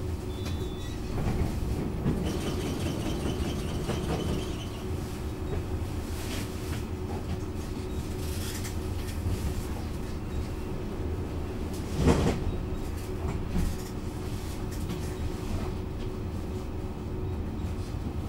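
Bombardier Flexity Outlook C low-floor tram running, heard from inside the passenger car: steady rumble of wheels on rail with a steady hum. A faint high whine lasts a couple of seconds near the start, and a single loud knock comes about twelve seconds in.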